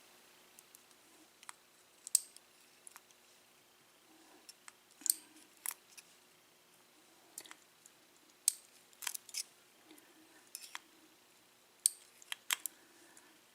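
Small sharp metal clicks and taps, scattered and irregular, from the top pins and springs being taken out of a disassembled pin-tumbler lock cylinder.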